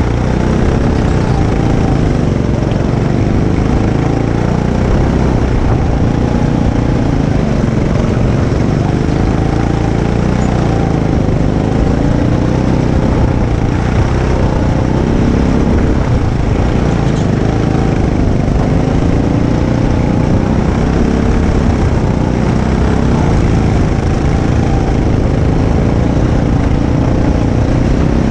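Go-kart engine heard from the driver's seat, running hard around a track, its pitch rising and falling again and again as the kart slows for corners and accelerates out of them, over a heavy low rumble.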